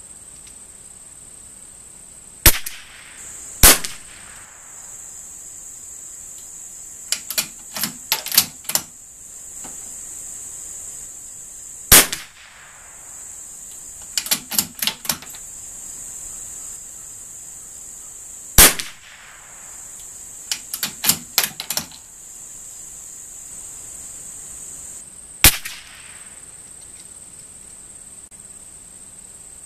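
.22 rimfire bolt-action target rifle fired five times, each a sharp crack, with bursts of metallic clicks between shots as the bolt is worked to eject and chamber the next round. A steady high insect drone runs behind.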